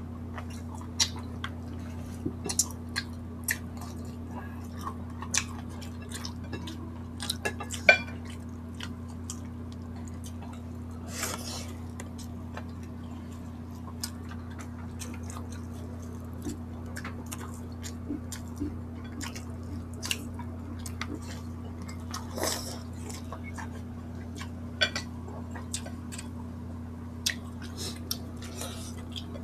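Close-miked eating: chewing and wet mouth clicks as fingers pull chicken meat from the bone, with scattered light taps of plates and cutlery and two longer, noisier sounds about a third and three quarters of the way through, over a steady low hum.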